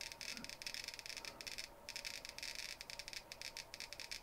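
CD V-700 civil defense Geiger counter clicking rapidly and irregularly through its add-on speaker. Each click is a detected radiation event.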